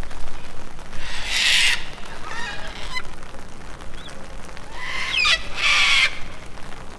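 Birds calling: two harsh squawks, one about a second in and one near six seconds, with thinner, gliding calls between them.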